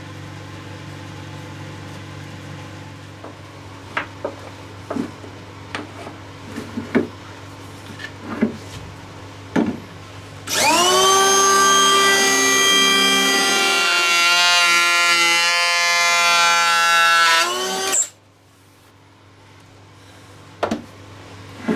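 Makita 18V cordless hand planer spinning up with a quickly rising whine, then running at speed as it planes a glued-up walnut blank, its pitch wavering under the cut before it stops abruptly. Before it, a steady low hum with scattered sharp clicks and knocks.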